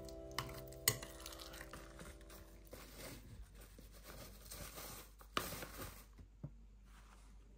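A metal spoon clinks twice against a glass bowl while stirring soft cottage cheese, then quiet scraping. Later, coconut flour pours into a glass bowl with a brief soft rush and a light clink.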